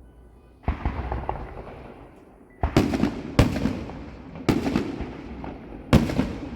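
Aerial fireworks bursting: a crackling burst about half a second in, then four loud bangs over the next few seconds, each trailing off in an echo.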